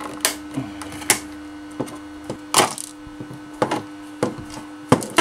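Plastic case of a small UPS being pried open at its snap-fit clips: a series of sharp cracks and clicks as the plastic strains, with a longer crackle in the middle and the loudest snap near the end. A steady hum runs underneath.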